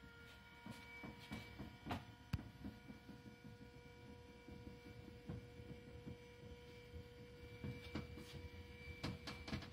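Ritter 223 power exam table's electric motor running with a steady hum as it raises the backrest. A few sharp clicks and knocks sound along the way, the loudest a little over two seconds in.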